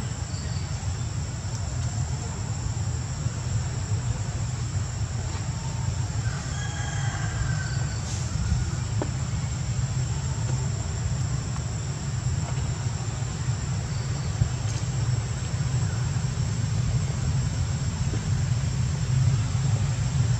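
Steady, high, thin insect drone over a steady low rumble, with a few faint chirps about seven seconds in.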